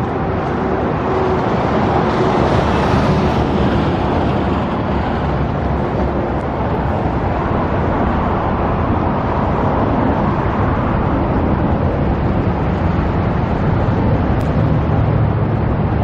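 Strong wind rushing over the microphone, with a steady hum of vehicle engines underneath.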